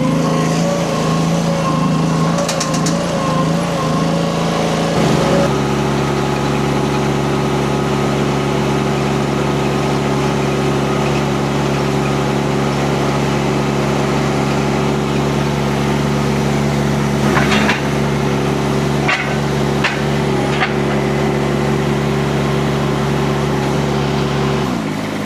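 Kubota D1105 three-cylinder diesel of a Rippa RS06-1 mini skid steer running steadily. Its note steps up about five seconds in and stays even, a few clanks come in the middle, and the engine speed drops just before the end.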